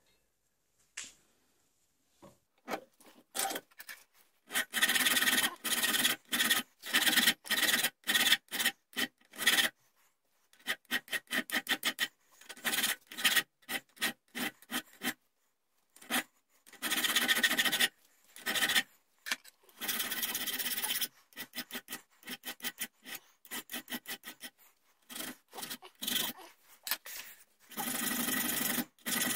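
Flat hand file rasping across a small steel rear sight held in a bench vise, in runs of quick back-and-forth strokes with short pauses between them, starting a couple of seconds in. The metal is being filed down to slim and shape the sight.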